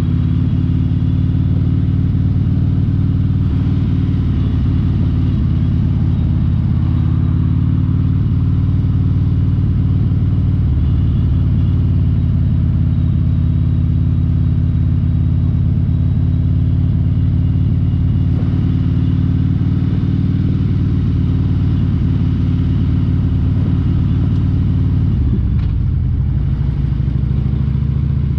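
Harley-Davidson V-twin motorcycle engine running steadily at low speed while riding. Near the end the engine note drops.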